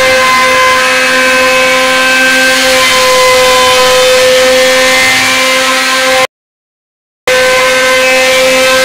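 CNC router spindle running with a steady, high, unchanging whine over a rushing noise; the sound cuts out completely for about a second near the end, then comes back the same.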